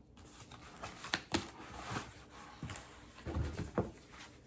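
Cardboard record-mailer packaging handled by hand: scattered scrapes and rustling, two sharp clicks about a second in, and a few low thumps a little after three seconds.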